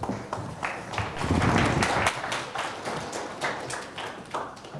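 Audience applauding, strongest in the first two seconds or so and dying away near the end.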